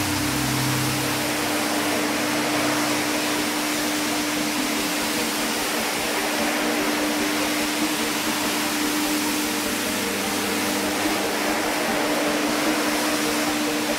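A rug-cleaning machine running steadily: a loud, even rushing noise with a constant hum. A lower hum drops away about a second and a half in.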